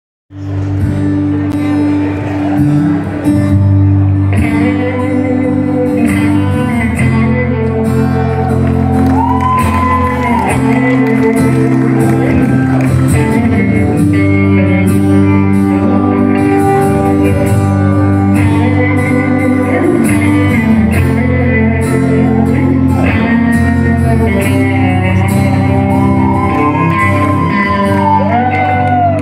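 A live country band playing loud amplified music: electric guitar, acoustic guitar and fiddle over a steady bass, with a few notes bent up and back down.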